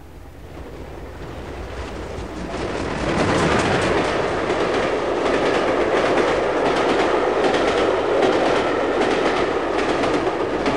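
Recorded sound effect of a train, wheels clattering on rail joints: it swells in over the first three seconds as it approaches, then runs loud and steady. It is played as a stereo-effect demonstration from the tape.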